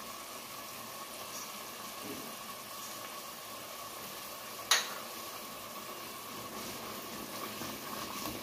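Yogurt-and-onion masala simmering and sizzling in a pot, with one sharp knock a little past halfway and a spoon stirring it near the end.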